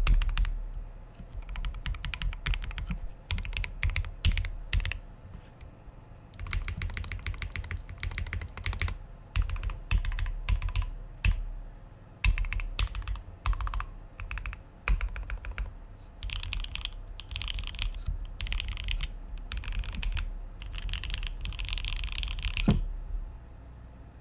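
Typing on a Klippe T 60% mechanical keyboard with Alpaca linear switches lubed with Krytox 205g0 and filmed, on a carbon fiber plate with GMK Nautilus keycaps. Fast runs of keystrokes come in bursts with short pauses and stop about a second before the end.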